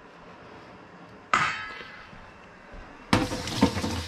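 A single sharp clink with a ringing tail about a second in. About three seconds in, a kitchen faucet is turned on and water runs into a stainless steel sink, with another clink under the running water.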